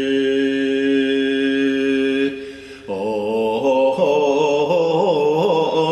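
A voice chanting a mantra in long held notes. One note holds steady and breaks off about two seconds in. About half a second later a new note starts and wavers up and down in pitch.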